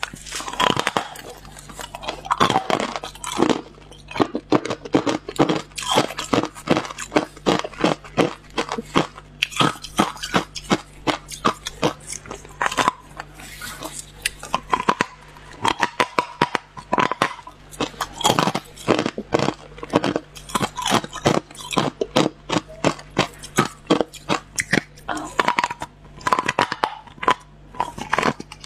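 Hard clear ice being bitten and chewed close to a clip-on lapel microphone: rapid runs of sharp cracks and crunches in clusters, with short pauses between mouthfuls.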